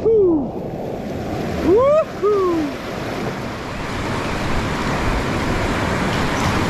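Whitewater rapids rushing steadily around a kayak. Right at the start and again about two seconds in, a voice gives a short rising-then-falling whoop.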